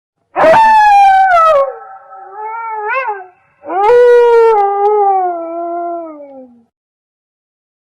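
A canine howling: two long howls, each sliding down in pitch, the second ending lower than the first.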